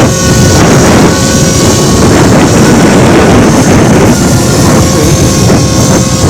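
Heavy wind buffeting on the microphone, with the faint steady whine of a radio-controlled scale helicopter flying underneath it.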